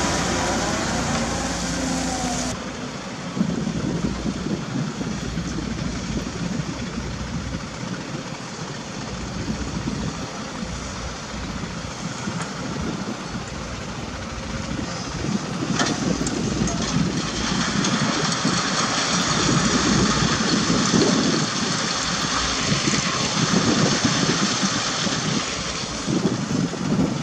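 Diesel engine of a Caterpillar 320D2 GC excavator running steadily as the machine digs, with a continuous mechanical rumble that grows louder in the second half.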